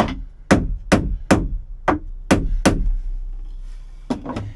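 Small hammer knocking at a wooden block epoxied to a fibreglass boat floor, to crack the block free along its glue seam. There are sharp knocks about two or three a second for three seconds, a pause, then two more blows near the end.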